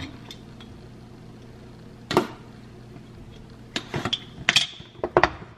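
Small cardboard product box being handled and opened: scattered taps, rustles and scrapes, one about two seconds in and a quick cluster over the last two seconds, one with a brief high squeak.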